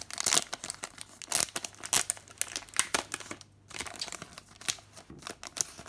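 Foil Pokémon TCG booster pack wrapper being torn open and crinkled by hand: dense, irregular crackling, with a brief lull about three and a half seconds in.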